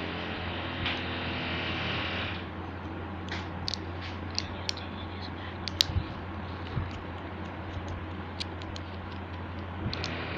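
Scattered small clicks and scrapes as a knife blade pries at the plastic frame and parts of a small toy speaker, the sharpest clicks about six seconds in, over a steady low hum.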